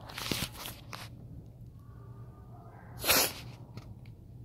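A man crying without words: noisy sobbing breaths through the first second, a faint whimper, then one loud, sharp sob just after three seconds in.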